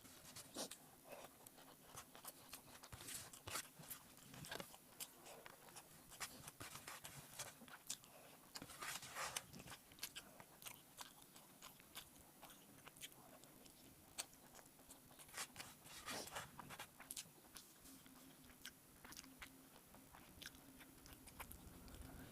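Faint chewing and wet mouth clicks of people eating rice and egg curry, irregular and frequent, with busier stretches a few seconds in and again past the middle.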